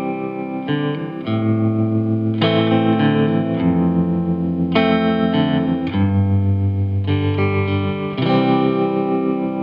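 Background music: a guitar with effects playing sustained chords over a held bass line, the chords changing every second or so.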